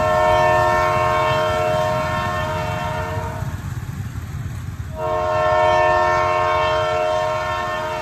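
Train horn sounding two long blasts of several notes at once, each about three and a half seconds, with about a second and a half between them, over the steady low rumble of the moving train.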